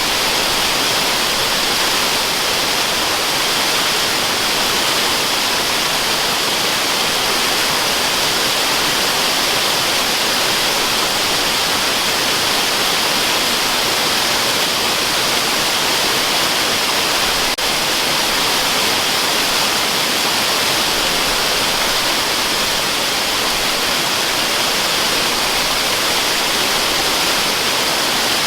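Steady rushing of waterfall noise, a dense hiss with the energy weighted toward the high end and an unchanging level, with one faint click about two-thirds of the way in.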